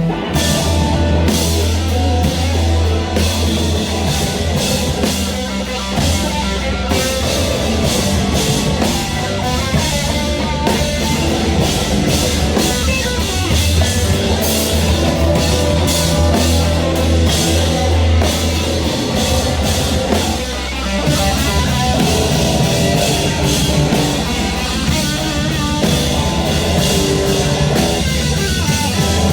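A rock band playing loud heavy rock, with a drum kit and guitars.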